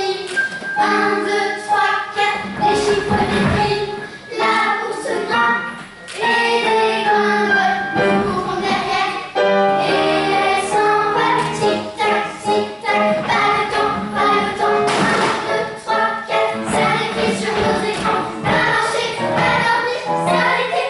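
Group of children singing a musical-theatre song in chorus, with instrumental accompaniment and a beat.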